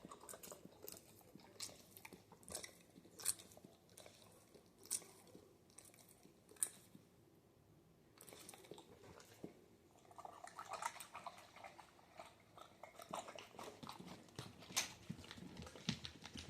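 A dog slurping and chewing chicken soup from a bowl: irregular wet clicks and smacks, sparse at first and coming thicker in the second half.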